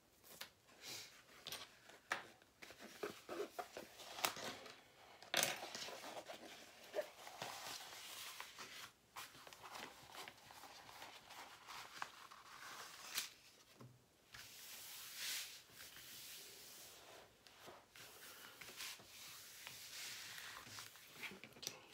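Crackling and rustling of a diamond painting canvas's plastic protective film as the rolled canvas is unrolled and smoothed flat by hand, with many sharp crackles and taps. In the second half, longer hissing sweeps come as hands slide across the film.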